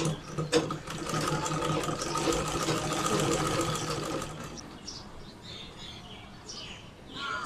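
Domestic sewing machine stitching through cloth, running steadily for about four and a half seconds and then stopping.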